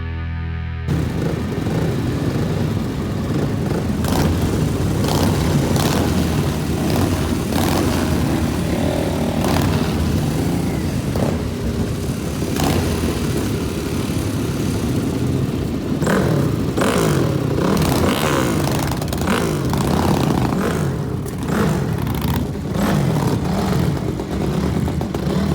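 Motorcycle engines running hard and revving, their pitch rising and falling over and over, with clattering and scraping throughout.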